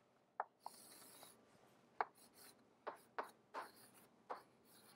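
Chalk writing on a chalkboard: a series of faint, short chalk strokes, taps and scrapes at uneven intervals, with a brief scratchy hiss about a second in.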